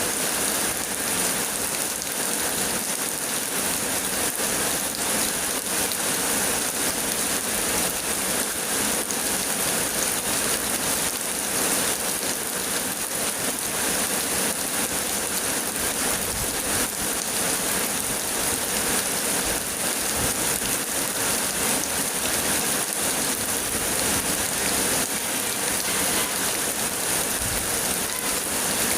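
Heavy rain pouring down steadily and falling on surfaces, a dense and even hiss.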